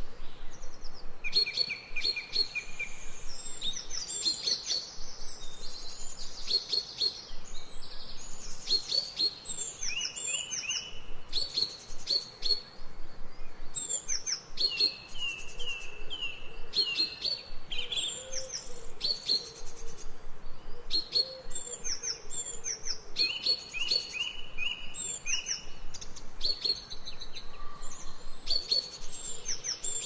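Songbirds singing and chirping in a forest, a busy, overlapping chorus of short high notes and quick repeated runs that goes on without a break.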